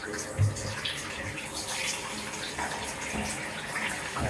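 Bath tap running into a bathtub, a steady rush of water. A single low thump sounds about half a second in.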